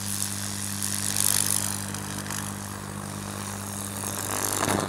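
Microwave-oven transformer humming steadily at high voltage while the current arcs and burns its way through wet plywood, with a dense hissing crackle. The hum cuts off at the very end as the transformer is unplugged.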